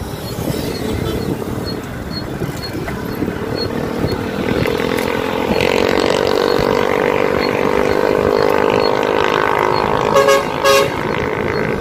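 Motorcycle engine under way, with road and wind noise: it accelerates, its pitch rising over a few seconds, then holds steady. Two short horn toots come near the end.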